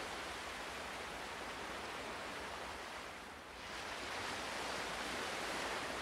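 Ocean waves washing ashore: a steady rush of surf that fades briefly a little past halfway, then swells again as the next wave comes in.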